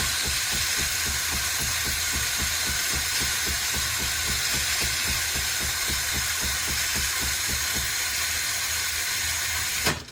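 Philips LatteGo espresso machine frothing milk: a loud, steady steam hiss over a rapidly pulsing pump, which cuts off with a click near the end as the drink finishes.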